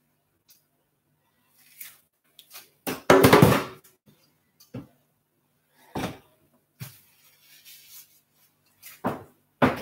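Kitchen equipment being handled and set down on a worktop: a loud clatter about three seconds in, then several lighter knocks and thuds.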